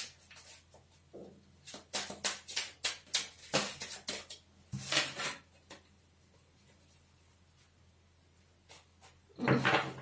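Tarot cards being shuffled by hand: a quick run of flicking taps, then a longer sliding swish about five seconds in, and a louder rustle near the end.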